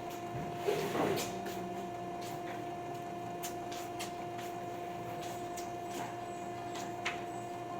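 Steady electrical hum on two constant tones, with a short rustle of handling about a second in and a few light clicks scattered through.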